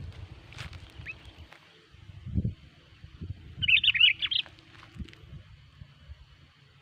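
Sooty-headed bulbul giving a short burst of quick, bubbly whistled notes a little over three and a half seconds in, with a few fainter single notes around it. A low thump comes a little over two seconds in.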